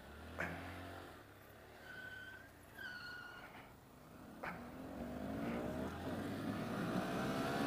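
Honda Grom's 125 cc single-cylinder engine running at low speed, then revving up with rising pitch and growing louder over the last few seconds as the bike accelerates. A few short high squeaks come in the middle.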